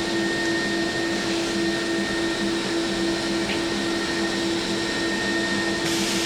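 HE&M V100LM-3 vertical band saw running steadily, its blade drive giving an even hum with a steady whine over it.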